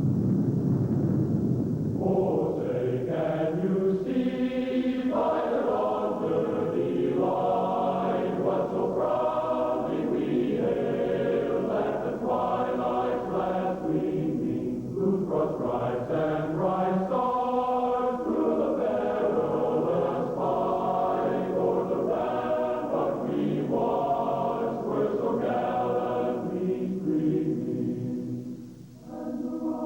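A choir singing long, held chords. It starts about two seconds in, after a low rumbling noise, and breaks off briefly near the end.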